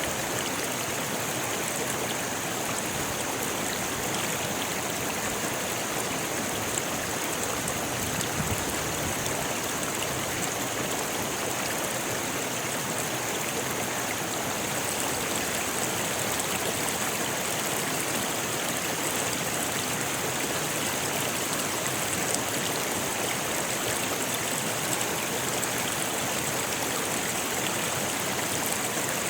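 A rocky river rushing steadily over stones: an even, unbroken rush of flowing water.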